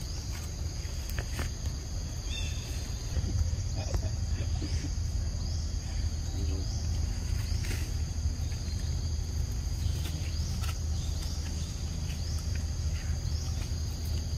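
Insects trilling steadily in a forest at two high pitches, with short rising chirps repeating every second or so. A constant low rumble runs underneath, with scattered light clicks and rustles.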